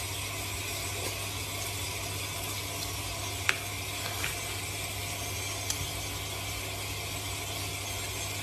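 Steady hiss of tap water running during a cat's bath, with a few faint clicks about three and a half to six seconds in.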